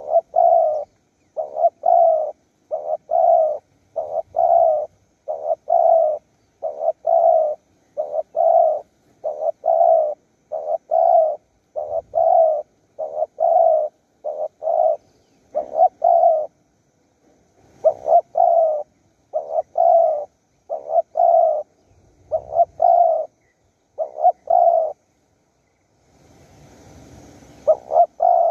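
Spotted dove cooing: short, low coos repeated about once a second in a long steady series, pausing briefly twice and picking up again near the end.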